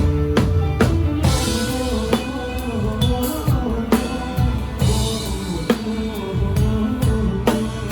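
Live band music with the drum kit up front: kick and snare hits over sustained bass and keyboard notes, as heard from beside the drummer.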